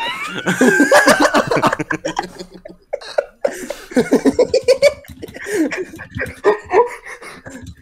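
Laughter over a voice chat call, coming in runs of short, quick bursts.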